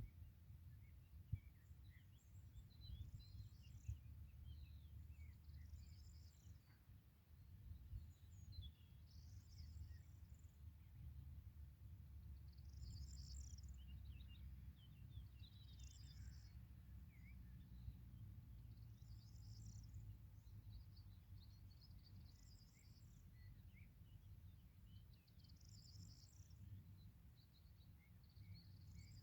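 Faint birdsong outdoors: one bird repeating a short, high chirped phrase about every three seconds, over a low steady rumble.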